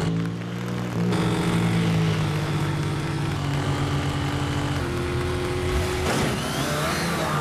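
Riding lawn mower engines running steadily at speed in a mower race, the engine note stepping to a new pitch about a second in.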